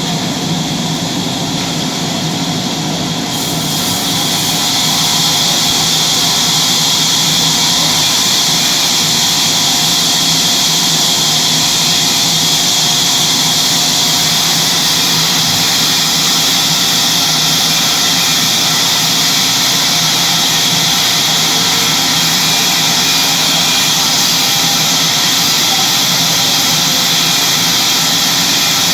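Sawmill saw running steadily while cutting wood, its hissing cutting noise growing louder about three and a half seconds in and then holding.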